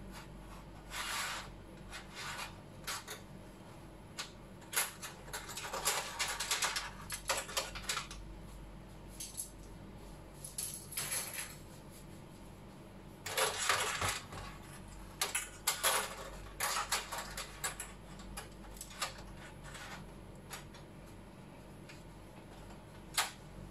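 Scattered light clicks, taps and rustling from hands handling tester leads and the LED backlight strips of an opened TV panel, coming in clusters with pauses between them. A faint steady hum runs underneath.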